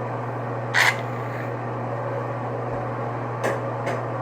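A short hiss about a second in, typical of a squirt of shaving cream from an aerosol can, then two faint clicks, over a steady low hum.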